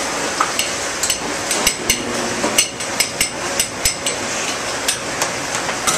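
Metal pans and utensils clanking on a stainless-steel range in a busy restaurant kitchen: an irregular run of sharp metallic knocks and clinks over the steady background noise of the kitchen.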